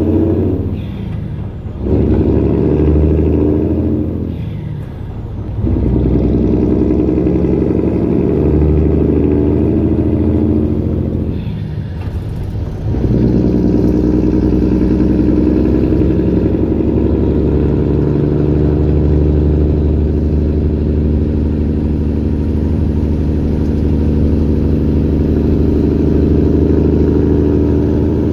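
2011 Peterbilt semi truck's diesel engine pulling along the road, heard inside the cab. The engine sound drops off briefly three times, about a second in, around five seconds in and around twelve seconds in, and then runs steady.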